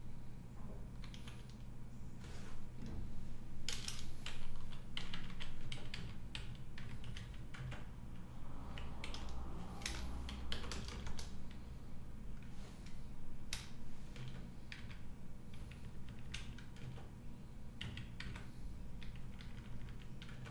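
Computer keyboard typing: irregular keystrokes coming in quick clusters, over a steady low hum.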